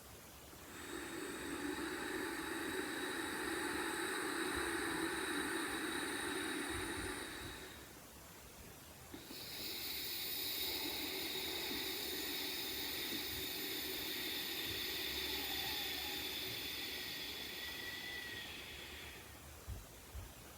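A person doing a hissing breathing exercise through a constricted throat: one deep breath in of about seven seconds, then after a brief pause a longer, higher hissing breath out of about ten seconds.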